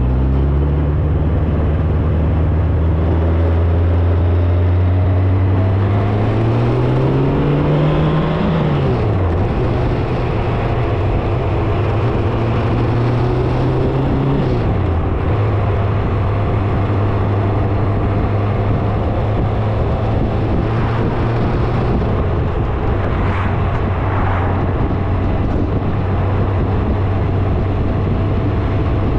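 Vehicle engine running while driving, over steady road noise. Its pitch climbs as it accelerates about six to eight seconds in, drops sharply at a gear change around nine seconds, dips briefly again around fifteen seconds, then holds steady at cruise.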